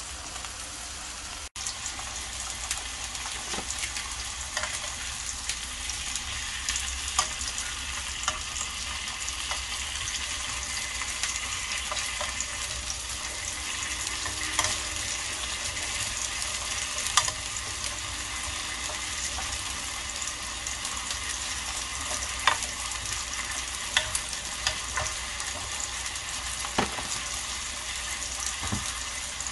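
Beef steaks and vegetables sizzling in a grill pan: a steady hiss with scattered pops and crackles.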